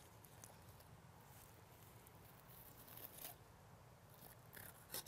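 Near silence, with a few faint clicks and scrapes from a curved flex fillet knife cutting the pin bones out of a raw wahoo fillet. The clearest come about three seconds in and again near the end.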